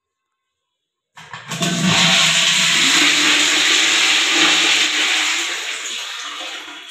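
Wall-hung toilet flushed from a concealed cistern's push-button plate: water rushes in suddenly about a second in, runs loudly and steadily, then tails off toward the end.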